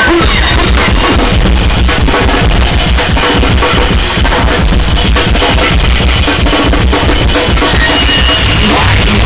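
Loud live noise rock from a bass-and-drums duo: rapid, pounding drum kit over heavily distorted electric bass. The recording is dense and overdriven.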